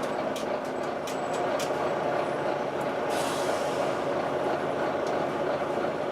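Volvo B9TL double-decker bus running with its engine cooling fan giving the steady whine known as the 'hoover'. A few sharp rattles in the first two seconds and a hiss of released air about three seconds in.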